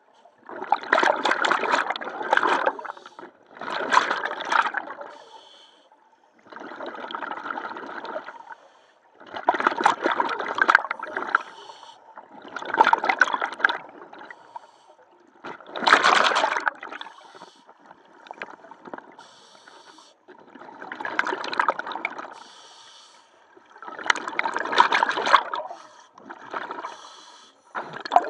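A scuba diver's exhaled breath bubbling out of the regulator underwater, in gurgling bursts of a second or two about every three seconds, with quieter gaps between breaths.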